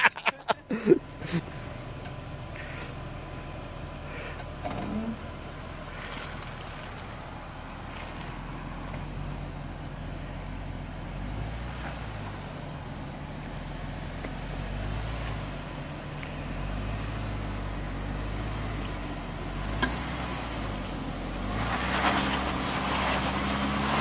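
Jeep Wrangler Rubicon engine running at low revs as it crawls up a rock ledge, the revs swelling and easing a little as it feeds in throttle.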